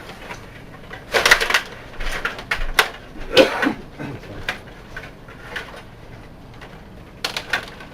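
Stiga table hockey game in play: plastic players, rods and puck clattering and clicking in irregular bursts of rapid knocks.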